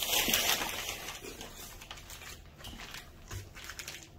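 Crumpled brown kraft packing paper rustling and crinkling as it is handled. It is loudest in the first second, then fades to soft, scattered crackles.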